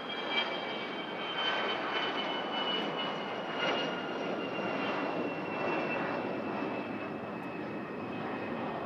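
Cessna Citation X business jet's Rolls-Royce AE 3007 turbofans on departure: a high whine that slowly falls in pitch over a steady rushing jet noise.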